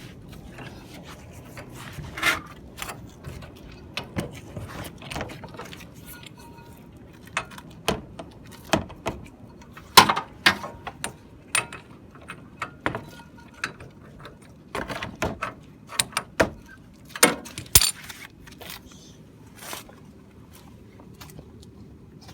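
Irregular metallic clicks and clanks of tools and brake parts being handled during a brake pad change, the sharpest about halfway through and again near the end.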